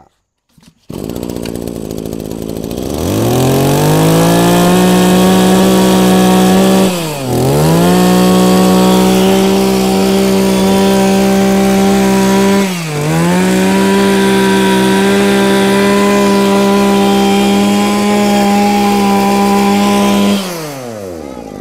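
Mitsubishi TB27 27cc two-stroke brush cutter engine starting about a second in, running slowly for a couple of seconds, then revving up and held at a steady high speed. The speed dips briefly twice and recovers, then falls away near the end.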